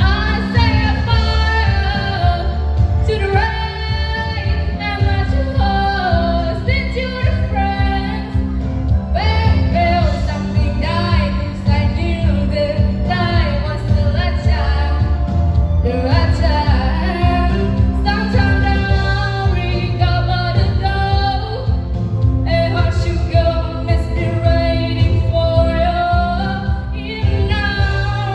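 A girl singing a pop ballad solo over an instrumental backing, in long held and bending phrases with short breaths between them.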